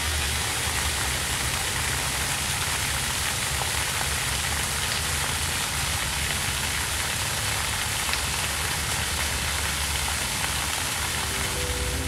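A stream of water pouring from an overhead pipe spout and splashing onto stone paving: a steady, even rush of falling water.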